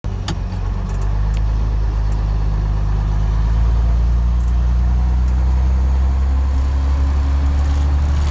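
Scania torpedo truck's diesel engine running steadily with a low, even drone, heard from inside the cab, with a few light clicks.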